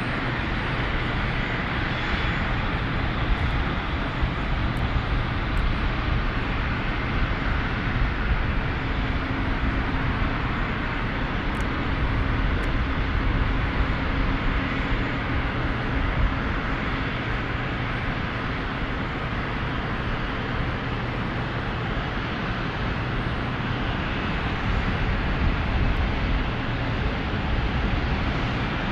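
Airliner engines running with a steady noise that holds level throughout, with a few faint steady whines.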